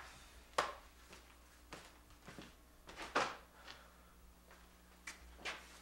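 Scattered knocks and clatters of someone moving about a bakery workroom, about seven in all at an uneven pace, the loudest about three seconds in, over a faint low hum.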